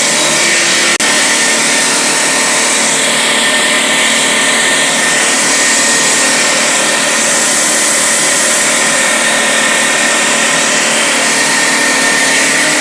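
AK-150 three-stage high-pressure air compressor head, driven by a 2.5 kW three-phase electric motor, running steadily while it pumps up pressure towards 300 bar.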